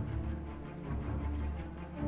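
Background music with a deep, heavy low end.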